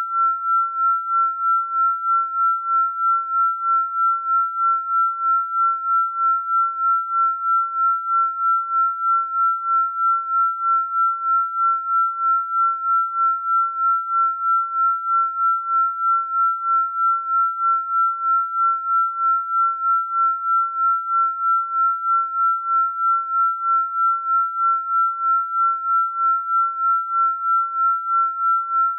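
A single steady, high-pitched electronic sine tone that pulses evenly in loudness about two and a half times a second, as in a binaural-beat or frequency-meditation track.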